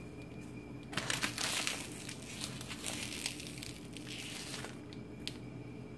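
Thin plastic bag crinkling and rustling as hands handle it, for about four seconds from a second in.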